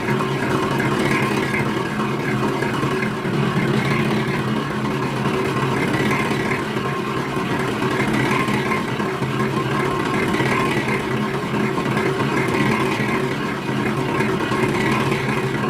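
Factory machinery running with a steady, even hum.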